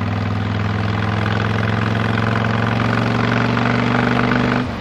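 Honda VTX 1300S V-twin motorcycle engine running under way, its note slowly rising in pitch and loudness, then dropping off abruptly just before the end as the throttle is closed.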